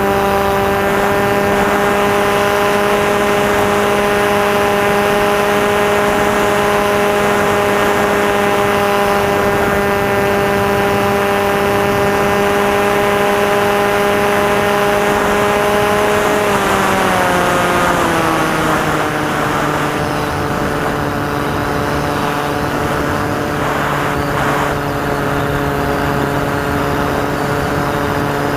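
Electric motor and propeller of a Maxi Swift RC flying wing in flight, running with a steady whine. About two-thirds of the way through the pitch drops as the throttle is eased back, then rises slightly near the end, over a rush of airflow noise.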